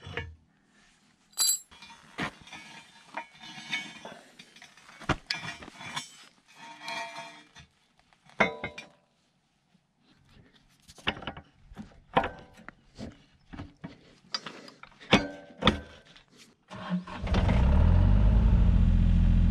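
Scattered metallic clinks and knocks of steel parts and tools being handled while a hydraulic thumb kit is fitted to a mini excavator's arm. Near the end a loud, steady, low drone begins and holds.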